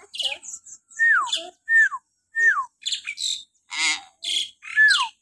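Common hill myna calling: four short, shrill falling whistles mixed with harsh squawks and chatter.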